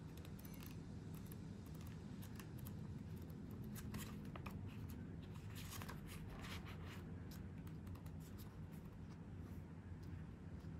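Pages of a paper planner being flipped through by hand: light papery flicks and ticks, thickest in the middle, over a low steady hum.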